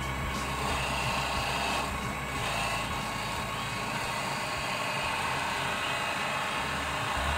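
Miniature benchtop wood lathe running steadily while a hand-held turning tool cuts the spinning wood.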